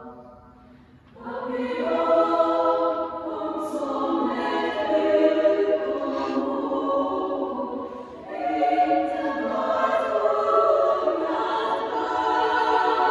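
Women's choir singing a cappella in a reverberant church. The previous chord dies away in the echo, the voices come in again about a second in, and there is a short dip for breath near eight seconds before the singing swells again.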